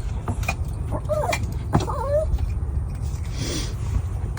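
Excited dog whining in a few short, wavering whimpers about a second in, with scattered sharp taps and clicks, over the steady low rumble of the car.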